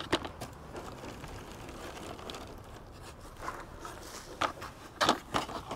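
Compost being sifted by hand through a wire-mesh garden sieve: faint rustling, with a few short, louder scrapes in the second half.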